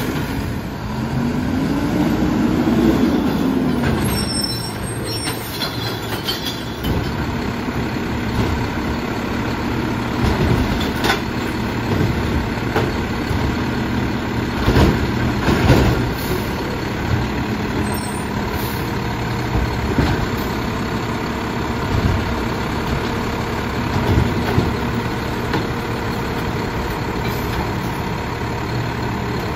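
Mack LEU garbage truck with a McNeilus body running at the curb. Its engine revs up and back down over the first few seconds, then runs steadily while the automated arm lifts and empties carts. Scattered knocks and bangs come from carts and trash dropping into the hopper, the loudest about halfway through.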